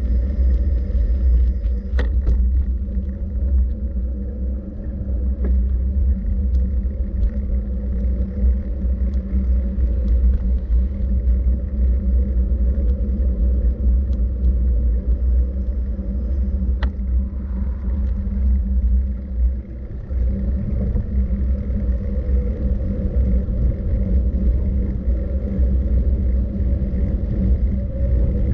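Steady, loud low rumble, with a few short clicks about two seconds in and again around seventeen seconds.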